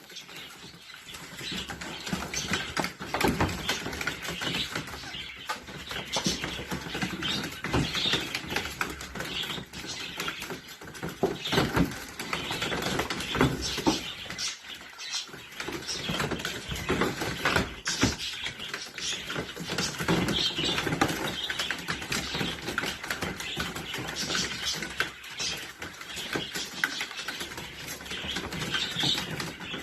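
Small chihuahua-dachshund mix puppies playing: irregular scuffling and knocking, with high little squeaks and yips.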